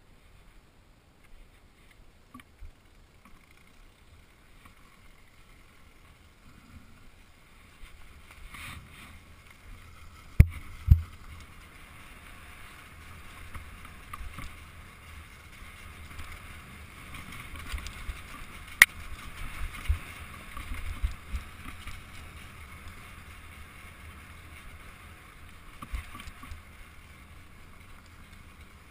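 Kawasaki KX250F four-stroke single-cylinder dirt bike engine running on a trail ride, heard muffled with a low rumble and wind, growing louder about a third of the way in. Two sharp knocks about ten seconds in and another a little past halfway stand out above it.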